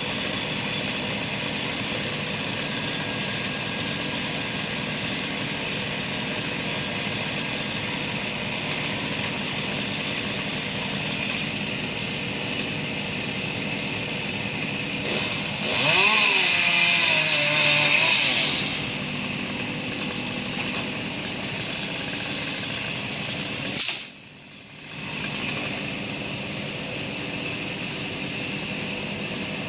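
A small engine runs steadily. A little past the middle a chainsaw revs up and cuts for about three seconds. Near the end there is a sudden click and a short drop in level.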